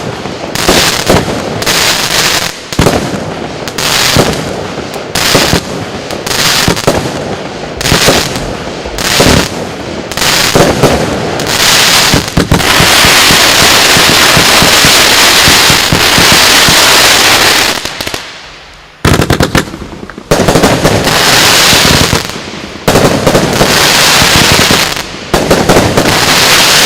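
Lesli 'Chainsaw Box' 86-shot firework battery firing. Shots go off about once a second for the first twelve seconds, each with a sharp report and a short tail. Then comes a dense, continuous stretch of crackling effects lasting about six seconds, followed by more loud volleys.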